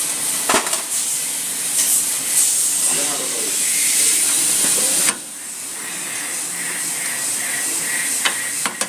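A steady high hiss with faint, indistinct voices under it; the hiss drops off abruptly about five seconds in.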